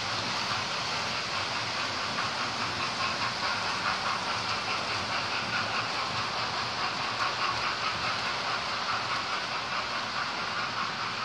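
Model railway trains running on the layout: a steady rattling whir of small locomotives and coaches travelling over the track.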